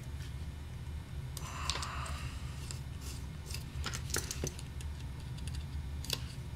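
Small metallic clicks and a short scrape from oboe keys and a steel pivot rod being handled and slid back into the key posts, with a steady low hum underneath.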